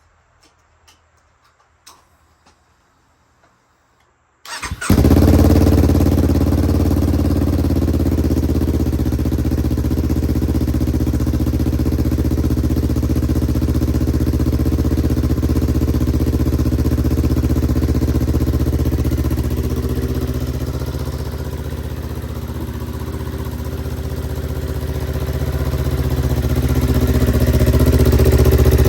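Motorcycle fitted with an aftermarket ISTUNT Racing 'Modify' exhaust, started about four and a half seconds in after a few faint clicks, then idling steadily and loudly. The level sags for a few seconds and picks up again near the end. The exhaust clamp is not fully tightened, leaving a small air leak that may colour the exhaust note.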